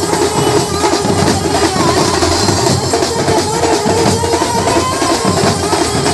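A Maharashtrian banjo party playing a Lavani tune: an amplified Indian banjo carries a wavering melody over dense, driving drums and percussion.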